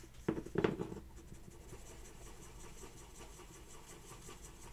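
Sandpaper rubbing over the cured epoxy putty on a diecast model's metal roof: faint, quick scratching strokes as the filled area is sanded flush. About half a second in there is a brief double thump, the loudest sound here.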